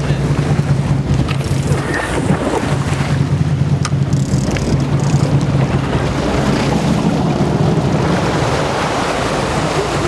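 Boat engine running with a steady low hum, under wind buffeting the microphone and the wash of the sea along the hull.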